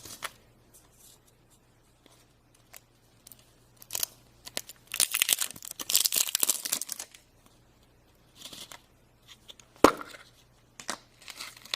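Toy package wrapping being torn and crinkled open by hand, in scattered bursts with the busiest stretch in the middle. There is one sharp click near the end.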